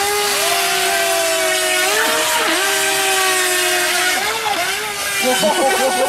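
FT007 RC speedboat's small electric motor whining steadily at speed over a steady hiss, its pitch dipping briefly twice and wavering near the end.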